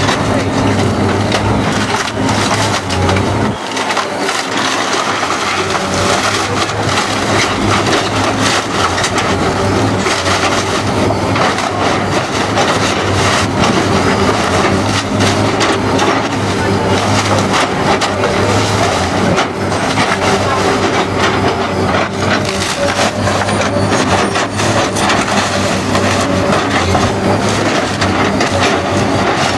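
A Komatsu PC200 hydraulic excavator demolishing a wood-frame house: timber cracking, splintering and crashing as the arm and bucket crush the frame, over the steady drone of the excavator's diesel engine.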